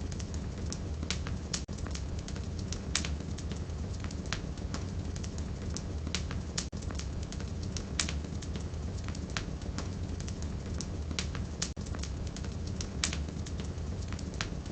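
Firewood burning in a fireplace: a steady low rumble of the flames with frequent, irregular sharp crackles and pops.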